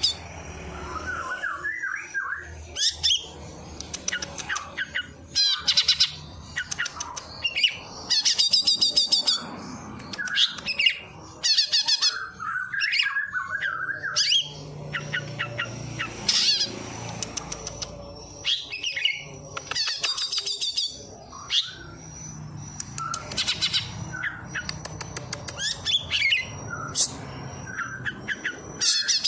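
A songbird singing a varied mimicking song, imitating the calls of sparrows and prinias. Bursts of rapid, high chattering trills alternate with lower warbled chirps, repeated every few seconds.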